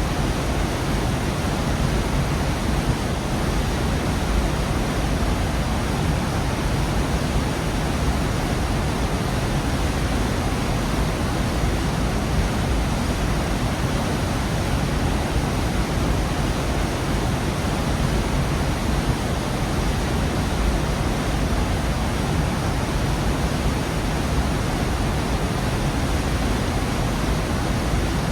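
Waterfall in a rocky gorge: a steady, dense rush of falling water, heaviest in the low end, with no breaks or changes.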